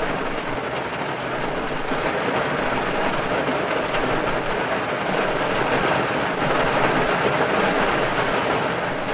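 Heavy rain falling on a car's roof and windows, heard from inside the car: a dense, steady patter with a low rumble beneath.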